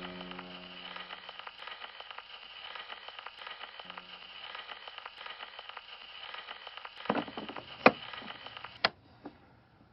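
Tail of a recorded Hindustani vocal song: a held low note fades out in the first second and a half and returns briefly about four seconds in, over steady crackle. A few loud pops come near the end, then the sound cuts off.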